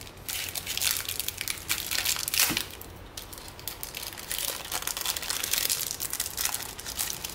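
Plastic wrapper of a Panini football card pack being torn open and crinkled by hand: a dense crackle, heaviest in the first couple of seconds, a brief lull about three seconds in, then lighter crinkling.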